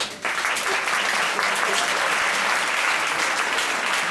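An audience applauding: dense clapping that starts about a quarter of a second in and holds steady.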